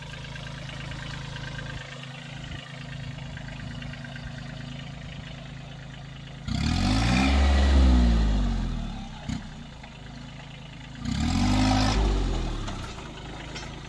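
Kubota A211N compact tractor's three-cylinder diesel engine running steadily, then revved hard twice, about halfway and again near the end. Each time it climbs in pitch and falls back, working under load as the tractor tries to climb a field bund in two-wheel drive.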